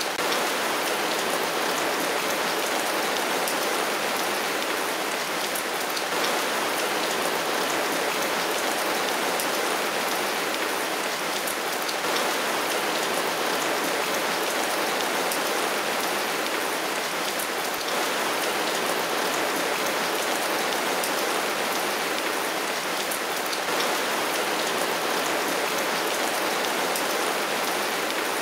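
Heavy rain falling steadily: a dense, even hiss of rain with scattered sharp drop ticks.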